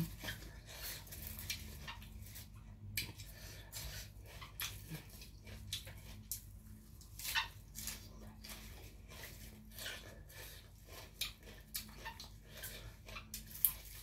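Close-up eating sounds: a person chewing a mouthful, with irregular soft wet smacks and clicks. A faint steady hum runs underneath.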